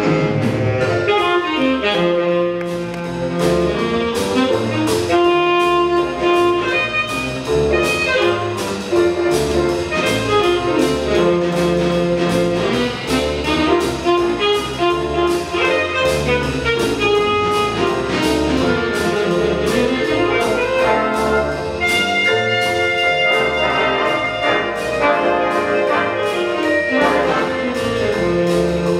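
Jazz big band playing: saxophones, trumpets and trombones over piano and drums, with a steady cymbal beat throughout.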